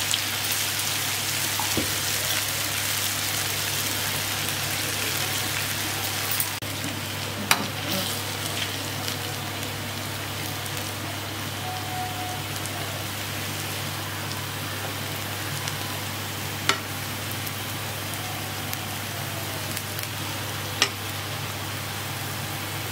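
Medu vadas (urad dal batter fritters) deep-frying in hot oil in an iron kadai: a steady sizzle and bubbling, with a few sharp clicks scattered through it.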